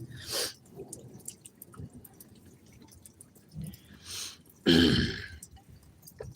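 Rainwater dripping in scattered ticks after a heavy downpour. A short hiss comes near the start and another about 4 s in, then a louder rushing sound with a low tone about three-quarters of the way through.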